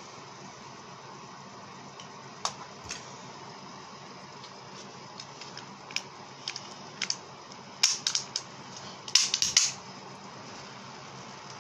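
Irregular sharp ticks and clicks from a homemade jet engine at rest: single ticks at first, then quick clusters near the end, the last cluster the loudest. A steady faint hiss lies under them.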